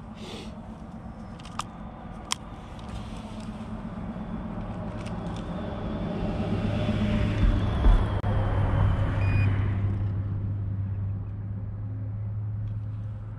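A car driving past, its low hum and road hiss building over several seconds to a peak about eight seconds in, then fading away. Two sharp clicks about two seconds in.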